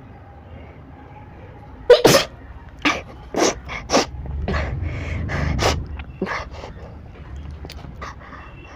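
A person sneezing, brought on by tickling the nose with a blade of grass: one loud sneeze about two seconds in, then a quick string of shorter sneezes and breathy noises.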